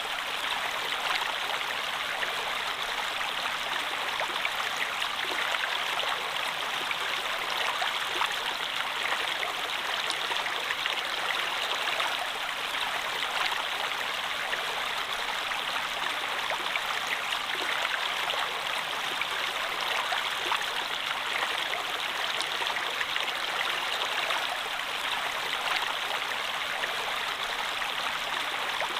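Stream water flowing and babbling over rocks, a steady splashing rush with small droplet-like ticks throughout.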